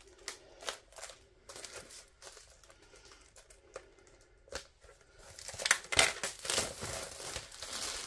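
Plastic wrapping being pulled off and crumpled by hand: scattered crackles at first, then a louder run of crinkling from about five and a half seconds in.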